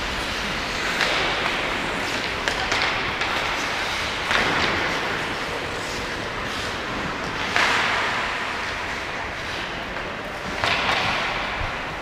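Ice hockey practice on a rink: skate blades scraping on the ice and pucks and sticks knocking, with louder sharp hits about four seconds in and again near eight seconds that echo through the arena.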